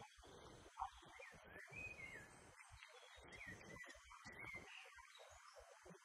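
Near silence with faint birdsong: a songbird's phrases of short rising and falling whistles, over a low background hiss.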